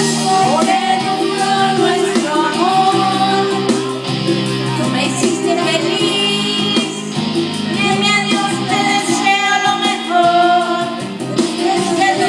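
Karaoke backing track of a Spanish-language ballad: guitar accompaniment under a wavering melody line that comes in phrases of a second or two.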